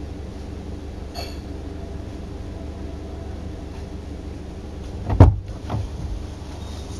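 Steady low rumble of a car heard from inside the cabin, with a loud thump about five seconds in and a smaller one just after.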